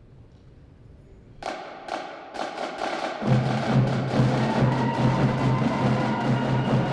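A live band starting a piece: after a moment of quiet room tone, four separate drum hits come about half a second apart, starting about a second and a half in. About three seconds in, the full band comes in with held notes over continuing percussion.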